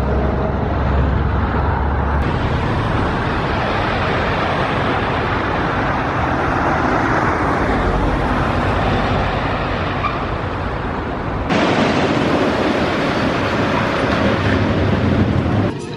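Great Coasters International wooden roller coaster trains running along the wooden track, a steady loud rush of wheel noise. The sound changes abruptly twice, about two seconds in and a little past the middle.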